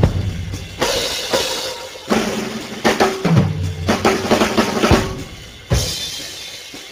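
Background music led by drums, with heavy hits roughly every second that drop away to a quieter passage near the end.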